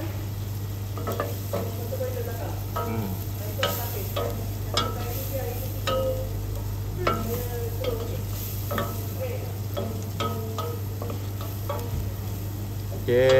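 Wooden spoon stirring and scraping diced onion in melted butter in a stainless steel stockpot, with irregular knocks against the pot and a light sizzle: onion being sautéed until translucent. A steady low hum runs underneath.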